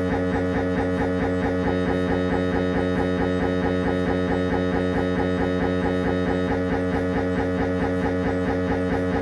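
Siemens Magnetom Avanto 1.5-tesla MRI scanner's gradient coils buzzing during a head-scan sequence. A loud, steady, pitched buzz pulses evenly several times a second and does not change.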